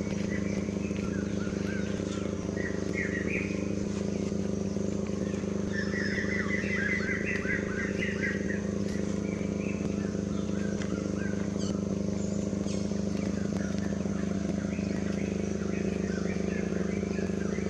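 A motor engine running steadily at idle, with short high chirping animal calls over it, including a quick run of chirps midway.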